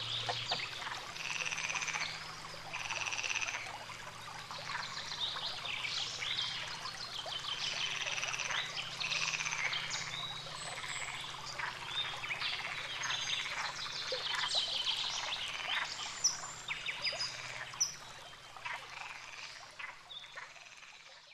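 Frogs croaking in a dense chorus of rapid, rattling calls that overlap and keep going, with two sharp clicks near the end.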